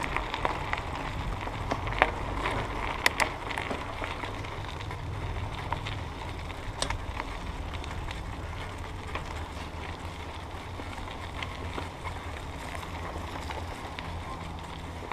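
Mountain bike rolling along a leaf-strewn trail: a steady low rumble of tyres and wind on the microphone, with a few sharp clicks about two to three seconds in and again near seven seconds.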